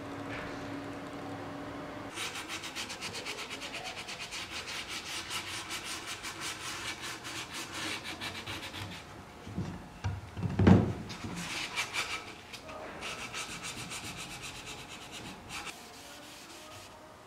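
Oak panel being sanded by hand with sandpaper: quick, even back-and-forth rubbing strokes. A single loud knock on the wood comes about ten seconds in, and the strokes then resume.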